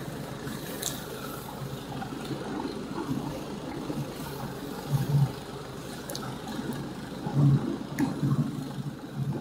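A motorized tow ('motor dog') running steadily ahead while its towed sled slides over snow and ice, a low drone mixed with the hiss of the runners. A few louder jolts come about halfway through and near the end.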